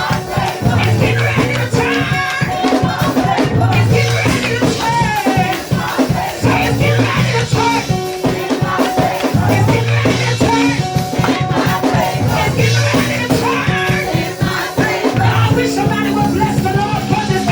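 Live church praise music: a repeating bass line and sustained keyboard notes under fast, busy percussion with a shaken rattle, and voices singing and shouting over it.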